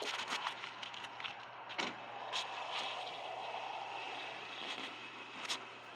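Played-back phone recording of crackly background noise with a steady low hum and a few sharp clicks, the unexplained noise the owner attributes to spyware on the phone.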